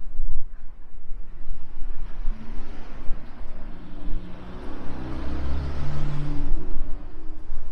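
A car driving past close by: engine and tyre noise swell over a few seconds, loudest about five to six seconds in, then fade away.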